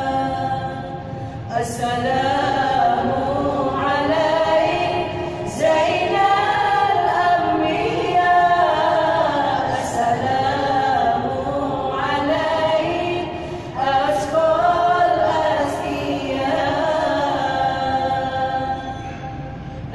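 A group of women singing a gambus-style devotional song together, in phrases of about four seconds with short breaks for breath between them.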